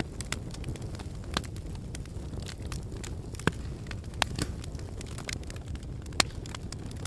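Wood campfire burning, crackling with irregular sharp pops over a steady low rumble.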